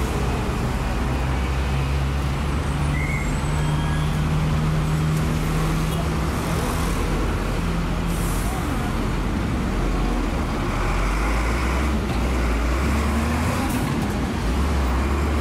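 Street traffic noise: motor vehicles running, with a steady low engine hum.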